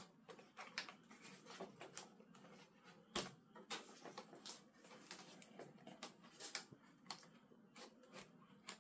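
Faint handling noises: scattered soft clicks, taps and rubs of foam and plastic model-airplane parts as a tail section is pressed and worked onto the fuselage, with one sharper knock about three seconds in.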